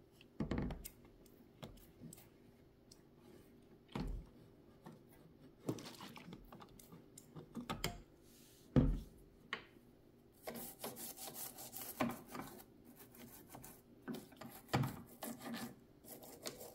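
Scraping and rubbing at caked grime inside a vintage Kenmore Imperial sewing machine during hand cleaning, with a few short knocks of tools and hands against the machine and a denser spell of scratchy rubbing about two-thirds of the way in.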